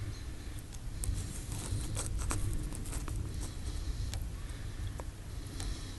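Tornado wind making a heavy, low, steady rumble, with scattered sharp ticks and taps of things striking the house, thickest a second or two in.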